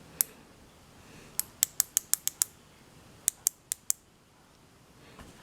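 Sharp little plastic clicks from a microwave door micro switch being handled and fitted back together: one click, then a quick run of about seven, then four more.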